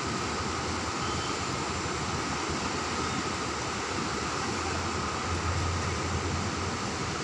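Steady wash of sea surf on a beach, with a low rumble that swells for a couple of seconds past the middle.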